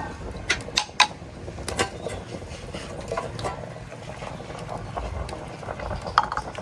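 A few sharp knocks and clicks, the loudest about a second in and near the end, over a steady low background.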